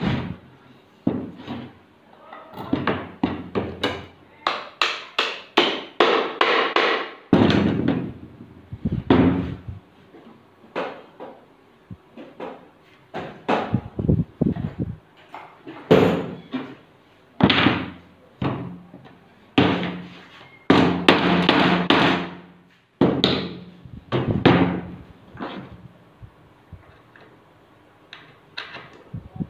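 Pine boards of a wooden hinged book stand handled on a workbench: irregular wooden knocks and thunks mixed with longer scraping slides of wood on wood.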